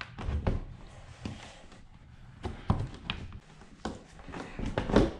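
Polaris Ranger's plastic hood panel being handled and unlatched for removal: scattered knocks and taps, with the loudest, sharpest knock near the end.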